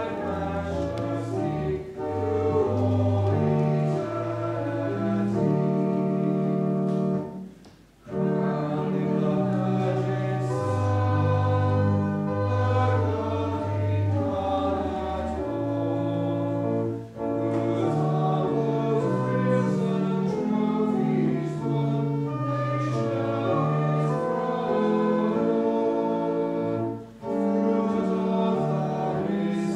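A church congregation singing the opening hymn of Mass in long held notes, with brief pauses between lines about every nine seconds.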